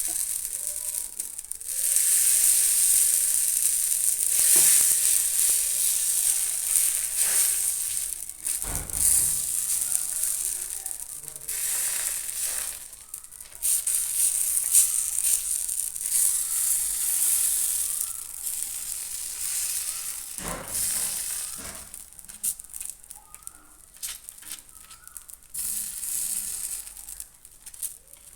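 Vegetable porota batter sizzling in oil on a hot flat griddle, a steady high hiss that fades in the last quarter. A few dull knocks come through it, about 9, 12 and 20 seconds in.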